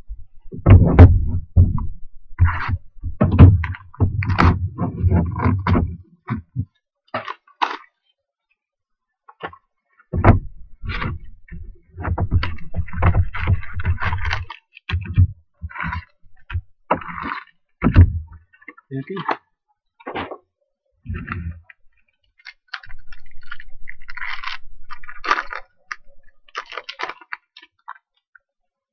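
2020 Topps Tribute foil card packs crinkling and being torn open, with the packs, box and cards handled on a table: irregular rustling, scraping and knocking in bursts, some with heavy low thumps.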